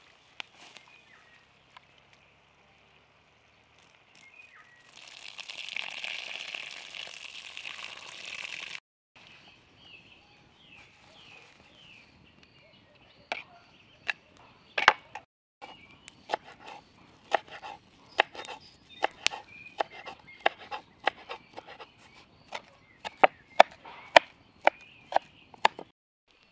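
Knife chopping fresh greens on a wooden cutting board: sharp, irregular knocks, coming faster toward the end, about one or two a second. Faint birdsong in the background, and a few seconds of rustling hiss in the first part.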